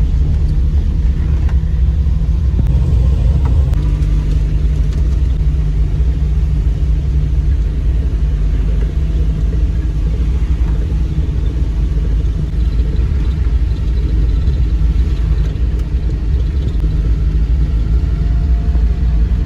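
Steady low rumble of a moving road vehicle, without change throughout.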